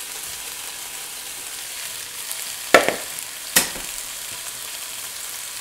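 Flank steak and bell peppers sizzling in a skillet, a steady frying hiss. About halfway through come two sharp knocks, under a second apart.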